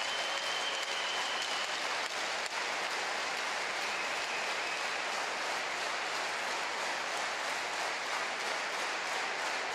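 Crowd applauding steadily in an ice hockey arena.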